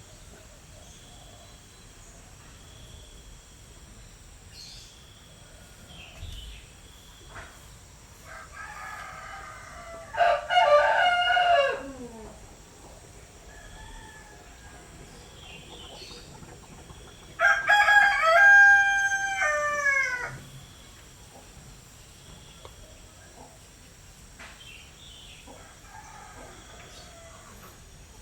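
A rooster crowing twice, loud cock-a-doodle-doo calls about ten and eighteen seconds in, each lasting two to three seconds and dropping in pitch at the end, with fainter calls between them.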